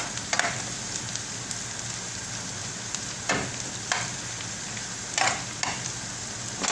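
Chopped onions and green chillies frying in hot oil with a steady sizzle, stirred with a spatula that scrapes across the pan several times.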